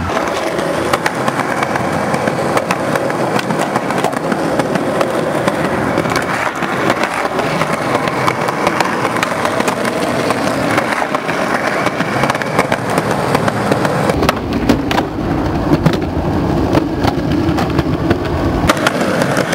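Skateboard wheels rolling over rough concrete: a steady gritty rumble with small clicks and crackles all through. A deeper rumble joins for the last few seconds.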